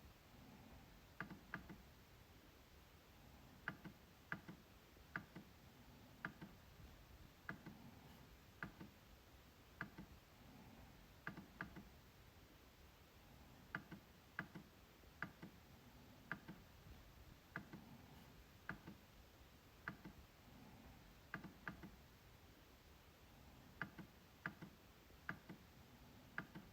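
MacBook trackpad being clicked: sharp, light clicks, singly or in quick pairs and threes, coming every second or so.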